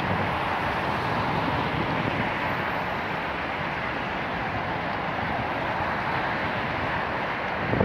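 Steady outdoor city ambience: a constant, even wash of distant traffic noise.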